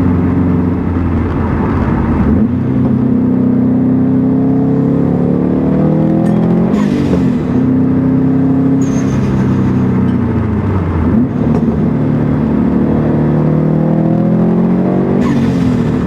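2015 Subaru WRX STI's turbocharged flat-four accelerating through the gears, its pitch climbing and then dropping at each shift. A short rush of air, the blow-off valve venting, comes at the shifts about three times.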